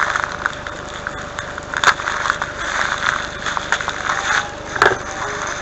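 A taped package being opened by hand: steady rustling and scratching of packaging and tape, with crackles and two sharp clicks, about two seconds in and near the end.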